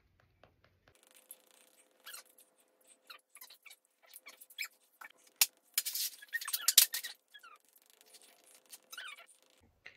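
A makeup sponge dabbing and patting cream face paint onto skin, heard as rapid, irregular squeaky taps and wet smacks, played fast-forward; they are densest and loudest in the middle.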